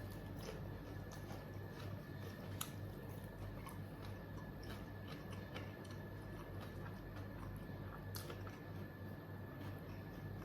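A person chewing and biting into ayam geprek (smashed fried chicken) with rice close to the microphone: many small wet clicks and crunches, with a steady low electrical hum underneath.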